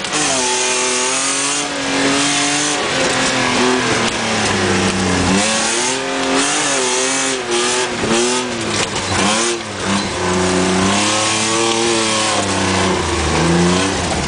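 Car engine heard from inside the cabin, revving hard and repeatedly climbing in pitch then dropping as it accelerates and shifts gear. Mud and water spray hiss and clatter against the body, with sharp knocks about halfway through.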